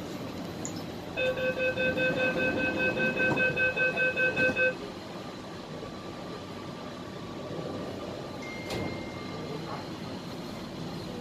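MTR West Rail Line C-Train door-closing warning chime: a rapid beeping of about four beeps a second, lasting about three and a half seconds, signalling that the doors are about to close. After it, the train's quieter steady background hum.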